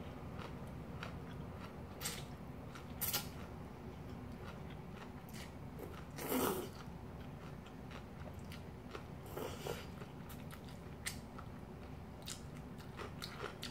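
A person eating cold kimchi noodle soup: slurping noodles and chewing, with many small wet mouth clicks. There is a longer slurp about six seconds in and another about three seconds later.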